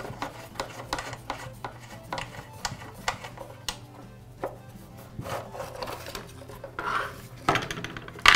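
Hands taking the nuts off and working the metal side cover free of a Makita DPC7311 cut-off saw: scattered light metallic clicks, scrapes and rubbing, with a few louder clatters near the end as the cover comes away and is set down on the wooden bench.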